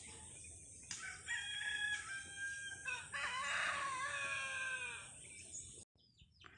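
A rooster crowing: shorter pitched calls, then one long crow that falls in pitch at its end. The sound cuts off suddenly near the end.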